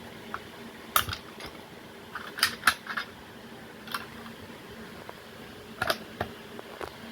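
Fire alarm pull stations being pulled one after another: a dozen or so sharp clicks and snaps as the handles are yanked down and latch, several coming in quick pairs.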